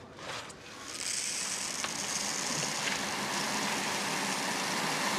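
A steady rushing hiss comes in about a second in and holds at an even level.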